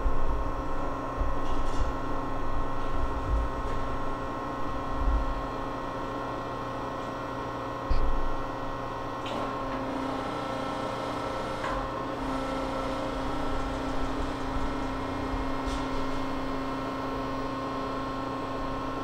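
An 18 x 72 Landis universal cylindrical grinder running with a steady electric hum from its motors, holding several even tones. The hum grows a little stronger about halfway in. A few soft clicks and low knocks come in as the control levers are worked.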